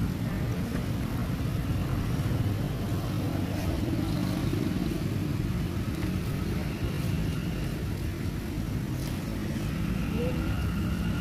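A steady low rumble, with a faint thin high tone coming in about two-thirds of the way through.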